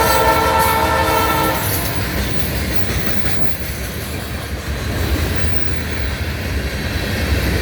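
Freight locomotive's air horn, a Leslie RS-3L, sounding one steady chord that cuts off about a second and a half in. After it comes the rumble and rail clatter of the passing freight train.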